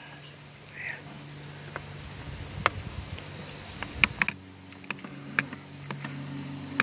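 Steady, high-pitched trilling of crickets in an insect chorus, with a handful of sharp clicks, a few close together around four seconds in.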